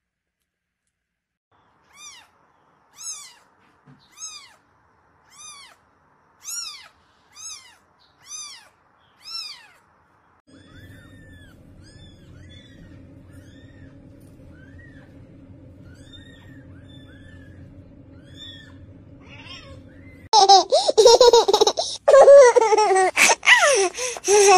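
Kittens mewing. First comes a run of short high mews about once a second. Then tiny faint mews sound over a low steady hum. Near the end a kitten cries loudly and without a break.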